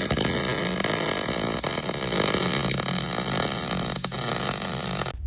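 Chainsaw engine running steadily at speed, stopping suddenly about five seconds in.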